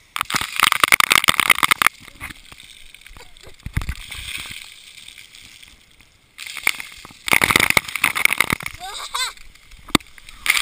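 Splash-pad water spraying and splashing onto and around a GoPro camera in its waterproof housing. There are two loud rushes of spray, one near the start and one about six and a half seconds in, each lasting about two seconds.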